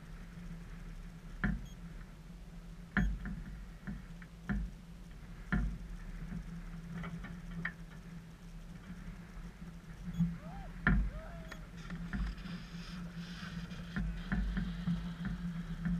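Sporadic sharp clicks and knocks, a second or two apart, over a steady low hum, with a faint hiss rising in the last few seconds.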